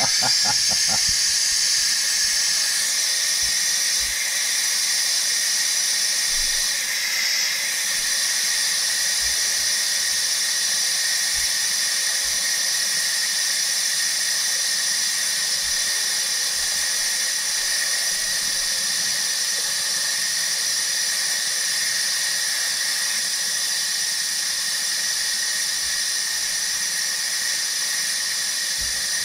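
Electric pressure cooker venting steam through its release valve in a quick pressure release after the cooking cycle: a steady hiss with a high whistling tone in it, wavering briefly about seven seconds in.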